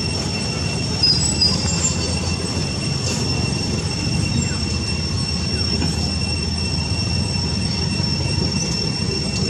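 A steady high-pitched whine made of two even tones, over a continuous low rumbling hiss, with a few faint short chirps about a second in.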